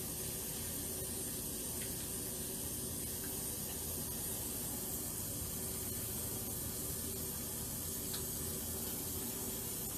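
A steady, even hiss with a faint low hum in a small bathroom, like water running in the shower.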